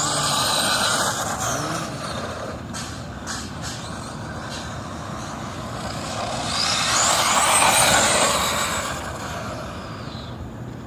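Electric HPI Bullet MT RC monster truck on a 3S LiPo driving around, its motor whine and tyre noise swelling as it passes close, once at the start and again around seven to eight seconds in. A few sharp clicks a few seconds in.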